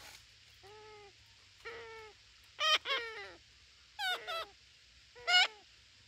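Parakeets calling: a run of short, bending squawks, some in quick pairs, faint at first and growing louder, the loudest about five seconds in.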